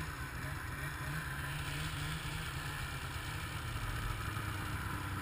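Snowmobile engines running at low speed, a steady low drone with no rise or fall.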